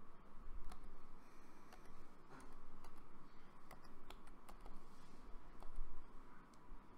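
Typing on a computer keyboard: scattered, irregular key clicks as a word is typed.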